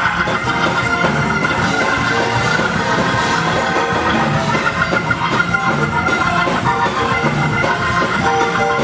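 Loud instrumental music with a steady beat.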